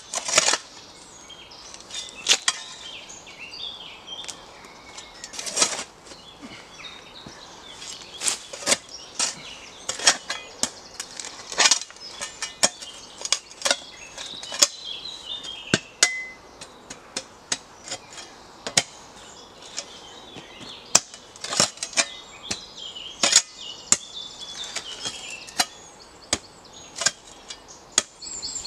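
Spade digging into rocky soil: repeated sharp chops and scrapes as the blade strikes stones, at an irregular pace of roughly one a second. Birds chirp in the background.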